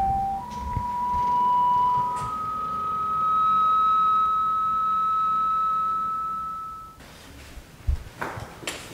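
Eerie electronic suspense tone, a pure sustained pitch that steps up twice and cuts off about seven seconds in. A soft thump and a few faint knocks follow near the end.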